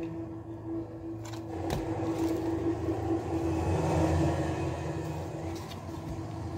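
A steady low hum and rumble, with a couple of sharp clicks just over a second in. Plastic food packaging then rustles for a few seconds as raw pork chops are pulled out of their wrapped tray.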